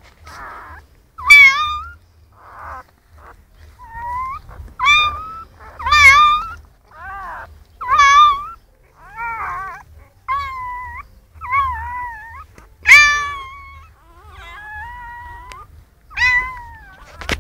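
Newborn puppies crying: a series of about a dozen short, high-pitched squeals, roughly one a second, some bending up and down in pitch.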